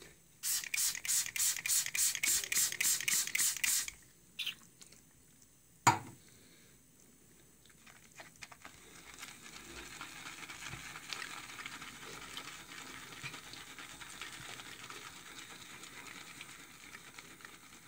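A boar-bristle shaving brush (Semogue 1438) scrubbing brisk strokes over charcoal shaving soap, about four a second for a few seconds, then one sharp knock. After that comes a soft, steady swishing and crackling as the brush swirls lather in a small bowl.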